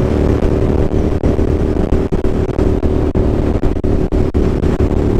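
Suzuki SV650's V-twin engine running steadily at freeway cruising speed, heard over a dense low rumble of wind and road noise.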